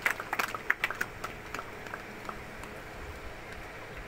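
Audience applause tapering off into a few scattered claps over the first second or so, then dying away to a low steady background.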